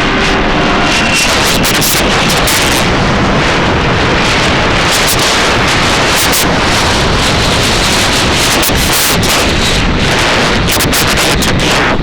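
A loud, dense roaring noise with many irregular sharp cracks scattered through it.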